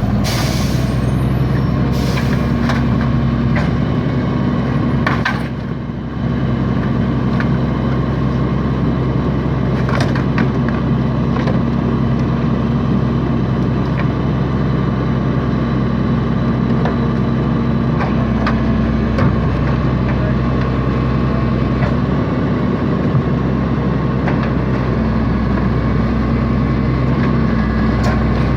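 Garbage truck engine running at a steady speed, with scattered clanks and knocks. There is a short burst of air hiss right at the start.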